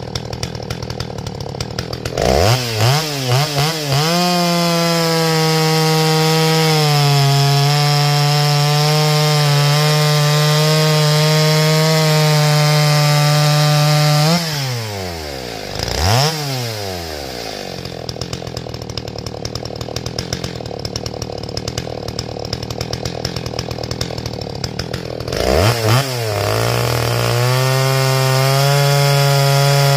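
Stihl chainsaw idling, then revved with a few quick throttle blips and held at high revs for about ten seconds while cutting through a log, its pitch dipping slightly under load. It drops back to idle with one more blip, and near the end revs up again into the next cut.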